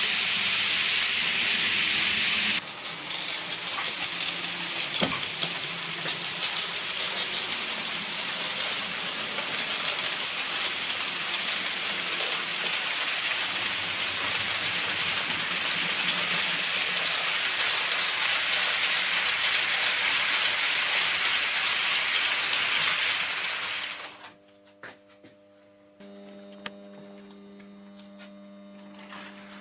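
Model train running along layout track: a steady hiss of wheels rolling on the rails, loudest at the start as the carriages pass close by. It drops suddenly about two and a half seconds in and carries on at a lower level. Near the end it falls away, leaving a low steady hum.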